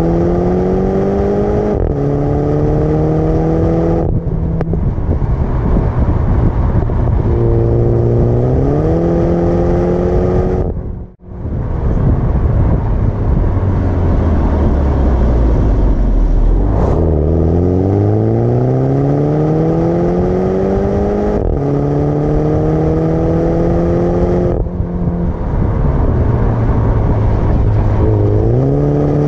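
Mini Countryman John Cooper Works' turbocharged four-cylinder exhaust, heard right at the tailpipe while driving, accelerating up through the gears. The pitch rises in each gear and drops at each upshift. About 11 seconds in, the sound breaks off briefly, followed by a few seconds of low revs and then another long run up through several gears.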